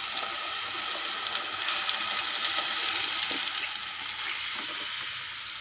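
Besan-and-buttermilk kadhi batter pouring in a steady stream into a pan of hot oil, fried onions and chillies, with a continuous watery rush and splash that eases a little near the end.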